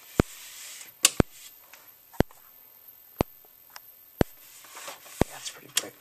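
Strobe of an EST 757-7A-HS fire alarm horn/strobe clicking once a second as it flashes, with the horn silent. A couple of louder stray clicks fall about a second in and near the end.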